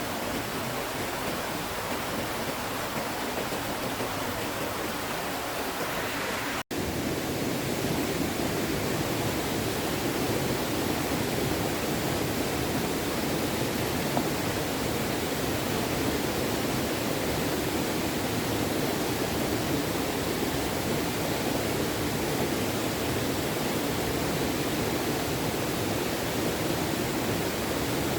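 A small stream running, a steady rush of water with no break in the flow. It drops out for an instant about seven seconds in, then comes back a little fuller.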